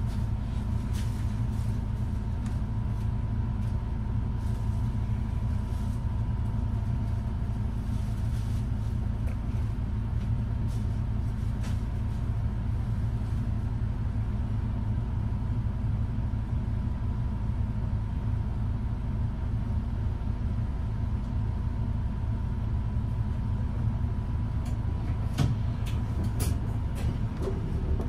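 City bus engine running steadily, heard from inside the cabin near the front: a low, even hum with a faint steady higher tone and a few light clicks and rattles, most of them near the end.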